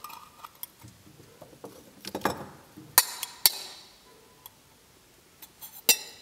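Handling noise from a steel tin can wound with a copper wire coil as a magnet is brought to it: a knock about two seconds in, two sharp metallic clicks with brief ringing a second later, and another click near the end.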